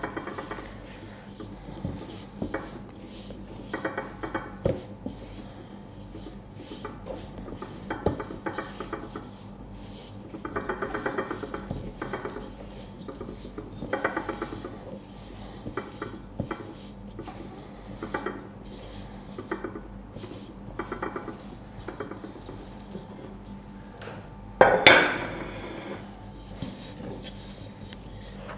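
Hands rubbing and squeezing crumbly shortbread dough in a stainless steel mixing bowl: soft scraping and scattered small clinks against the metal bowl, with one louder knock of the bowl near the end.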